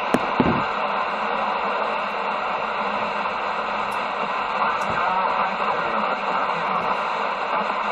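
CB radio speaker putting out a steady, loud static hiss on an open channel, with a couple of short clicks about half a second in.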